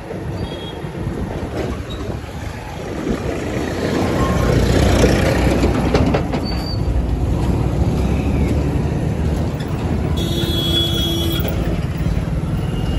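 Commuter motorcycle engine running under way, with road and wind noise and the surrounding city traffic. About ten seconds in, a high steady tone sounds for over a second.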